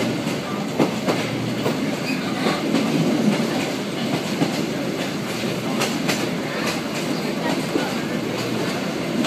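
Yangon Circular Railway passenger train running along the track, heard from inside the coach through an open window: a steady rumble with scattered, irregular knocks and clacks from the wheels and coach.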